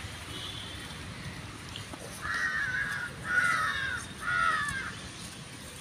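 Crow cawing three times in quick succession, harsh calls of under a second each, starting about two seconds in.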